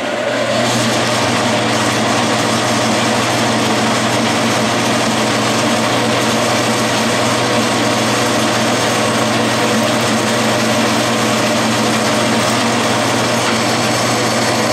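Metal lathe running steadily while a freshly sharpened 1/4-inch twist drill cuts into the spinning workpiece: a constant motor hum under the noise of the cut. The drill is throwing two spiral chips, the test of an evenly ground point.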